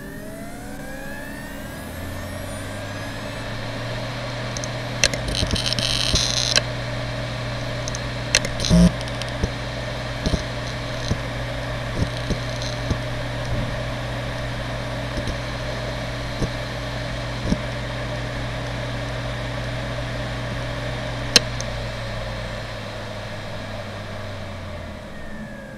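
Seagate Barracuda ES.2 ST31000640SS 1TB 7200 rpm SAS hard drive finishing its spin-up with a rising whine, then running at a steady hum while its heads tick and seek in short clicks as it initialises. A single sharp click comes shortly before it spins down with a falling whine near the end.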